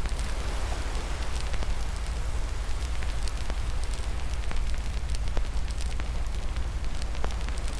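Fireplace fire crackling: a steady low rumble and hiss with frequent sharp pops and snaps.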